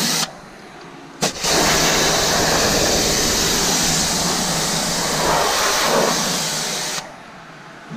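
Kranzle 1122TST electric pressure washer spraying: a loud, steady hiss of water from the gun with the pump running under it. It cuts off just after the start, comes back on with a click about a second in, and stops again about a second before the end.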